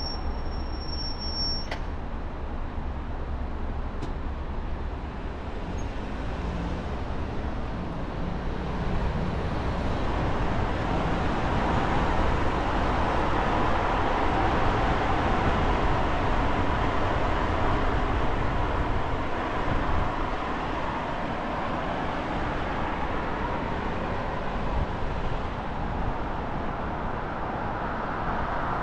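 Road and traffic noise of a car driving, a steady rush with a low rumble. It grows louder about ten seconds in and eases again a little after twenty seconds.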